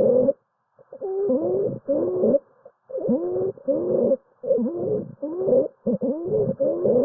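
Stridor: a quick series of crowing breath sounds, each a little over half a second long, with the pitch sliding up and down within each breath. It is the sign of air moving turbulently past a partial obstruction of the larynx or trachea.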